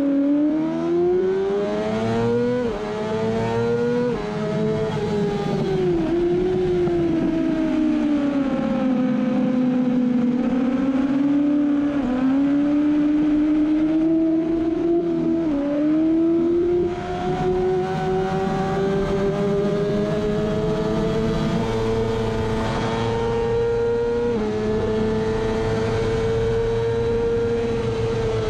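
Kawasaki ZX-6R inline-four engine at full race pace, heard on board: it revs up and drops in pitch twice in quick succession in the first few seconds (gear changes), falls away with a few short blips around five to seven seconds in as the bike slows for a corner, then pulls hard in a long steady climb with another sharp drop in pitch about twenty-four seconds in.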